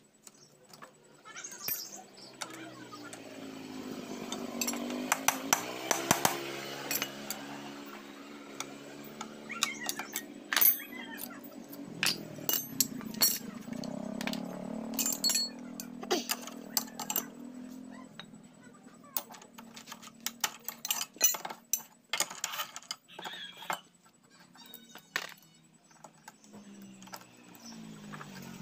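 Metal hand tools clinking and tapping on a Yamaha Jupiter Z engine as its intake and covers are unbolted for teardown. A steady motor drone sits underneath through most of the first half and returns near the end.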